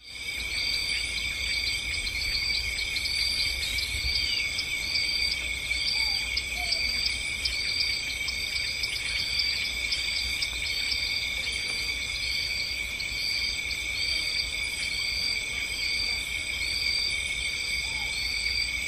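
Steady, high, insect-like chorus with a short chirp repeating about one and a half times a second, over a low rumble.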